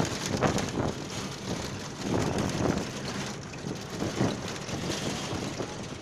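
Wind buffeting the microphone in uneven gusts over the steady running noise of a moving vehicle.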